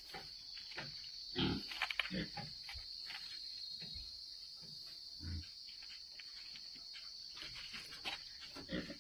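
Pigs grunting faintly a few times, with scattered small clicks and a steady high-pitched hiss underneath.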